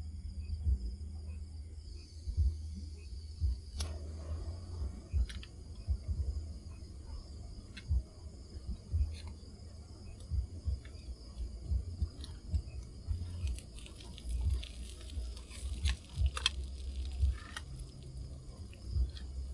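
Insects trilling steadily in high, even tones, over a low rumble, with scattered light clicks and knocks that come more often in the second half.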